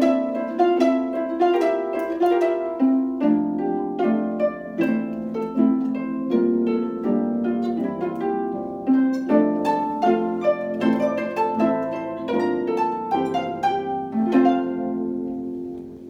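Two concert harps playing a duet: a quick run of plucked notes and chords. Near the end the playing stops and the last chord rings on, dying away.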